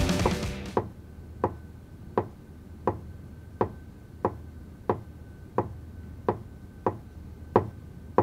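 Music fades out, then sharp ticks repeat at an even pace, about one every 0.7 seconds, with a faint steady high tone beneath them.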